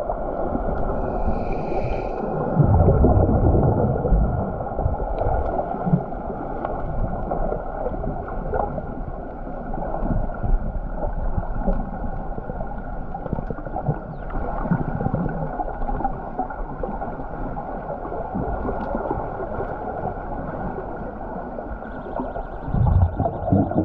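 Muffled, continuous churning and bubbling of water as heard by a camera submerged in a swimming pool, from swimmers moving about, with a brief high tone about a second and a half in.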